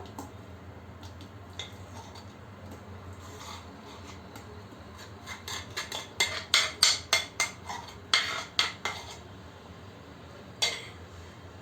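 A kitchen utensil clinking and scraping against a bowl or cake tin in a run of short strokes, with one more clink near the end, as cake batter is handled.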